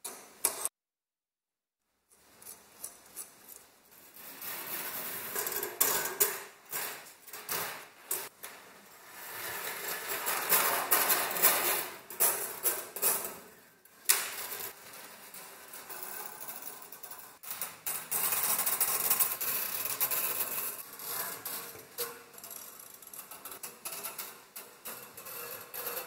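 Coiled resistance wire of a fan heater's heating element being strung around an aluminium element frame: a steady run of metallic rustling, scraping and light clicks as the coil drags over the metal. A short click and about a second of silence come near the start.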